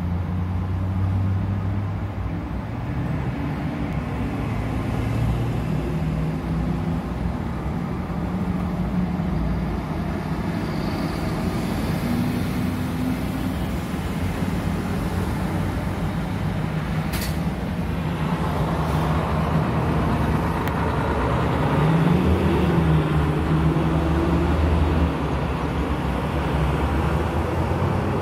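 Truck and car traffic heard from inside a car: engines of passing trucks running steadily. There is a sharp click about seventeen seconds in, and a little after twenty seconds an engine rises and falls in pitch.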